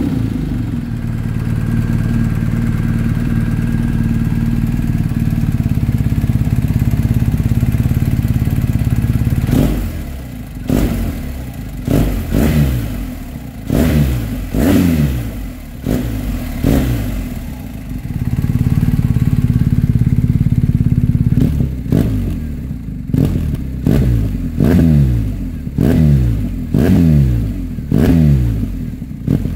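BMW R 1250 GS boxer-twin engine breathing through an Akrapovic slip-on silencer, idling steadily. About ten seconds in, it is given a run of quick throttle blips, the revs rising and falling back each time. After a short spell of steady idle, it gets a second run of blips near the end.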